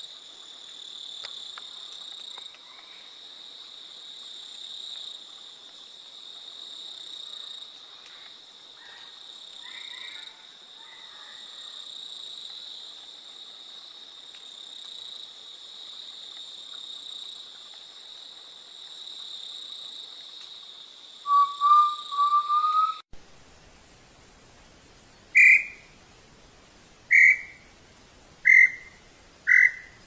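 Tinamous whistling over a steady high drone of insects. There is a quick run of rising whistled notes about three-quarters of the way through. After an abrupt cut come single clear whistles a second or two apart, which come faster and faster toward the end.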